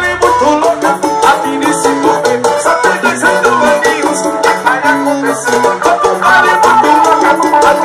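Upbeat forró music: a busy melodic lead over steady percussion.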